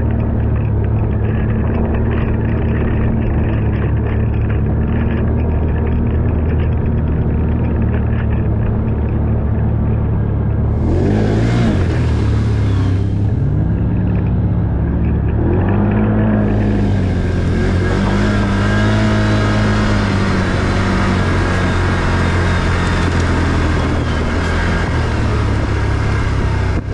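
ATV engine running under way, its pitch swinging up and down several times from about eleven seconds in as the throttle is worked. A rushing hiss joins in at times.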